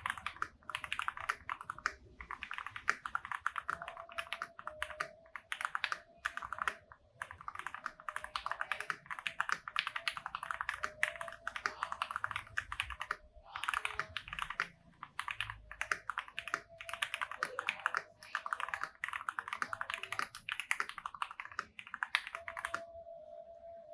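Typing on an FL-Esports MK870 mechanical keyboard with lubed Matcha Ice switches, lubed stabilizers, a tape mod and Zodiac OEM-profile keycaps. Fast, continuous keystrokes with a few short pauses, stopping about a second before the end.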